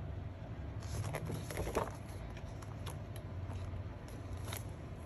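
Quiet handling of a photobook's glossy paper pages: a few faint rustles and light taps as a large fold-out page is folded back.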